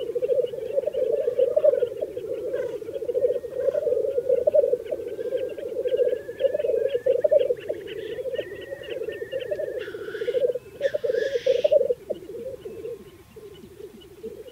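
Male black grouse at a lek giving their continuous bubbling, dove-like rookooing display song, which fades off near the end. Two sharp hissing 'sneeze' calls cut through about two-thirds of the way in.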